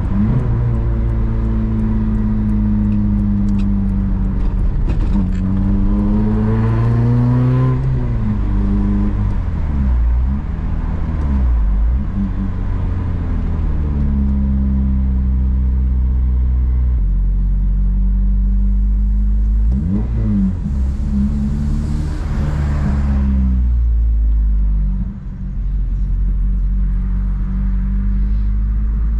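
Honda Civic Si engine under way, pulling through the gears. The revs climb and then fall sharply at a shift about eight seconds in, settle into steady cruising, and rise once more briefly around twenty seconds in.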